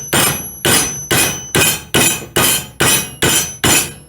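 Hammer striking the metal tabs of flat-belt lacing to close them down onto the belt: nine sharp blows about two a second, each with a brief metallic ring.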